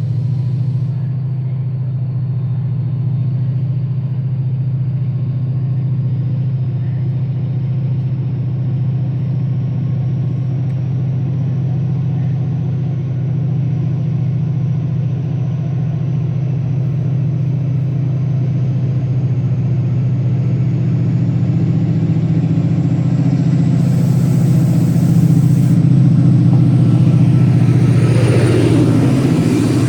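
Steady low rumble of a train running, growing louder and noisier in the last few seconds.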